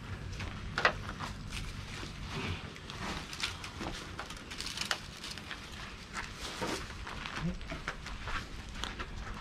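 Scorched leaves covering an umu (Samoan earth oven) rustling and crackling irregularly as hands pull them back.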